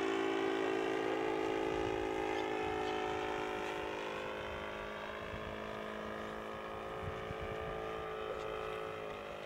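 The engine and propeller of a radio-controlled 1:6 scale Fieseler Storch model, heard in flight as a steady drone. Over the first few seconds its pitch sinks a little and it grows fainter as the plane moves away, then it holds even.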